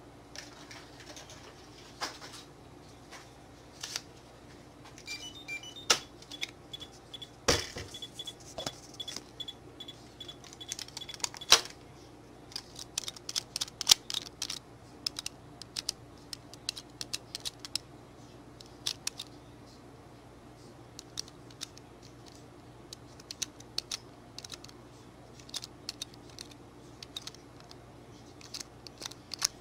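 Keys, padlocks and lock mechanisms being handled: irregular clicks, knocks and metallic clatter. A few short electronic beeps sound about five seconds in, followed by a steady high beep lasting several seconds.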